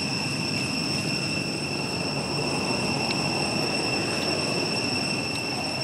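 A steady, high-pitched insect drone that holds level throughout, over a low, even rumbling noise.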